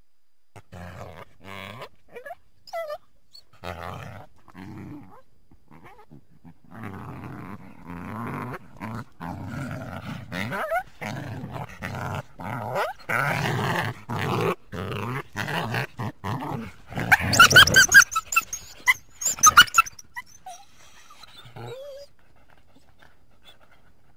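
Coyote calls: a run of rough, broken barking and growling sounds with a few short pitch glides, building to a loud burst of high-pitched yips late on.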